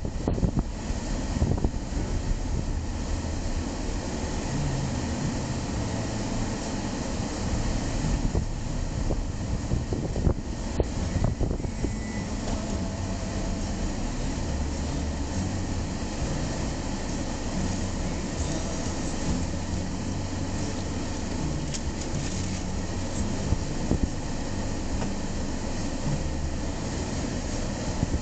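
Steady low rumble of a car heard from inside the cabin: engine and road noise while it rolls slowly, then the engine idling while it stands at a junction.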